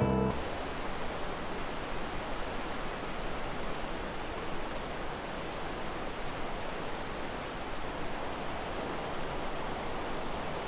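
Steady rush of a fast-flowing river running white over rapids.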